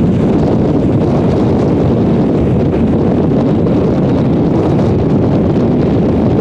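Strong wind blasting across the microphone, a loud, steady low rumble.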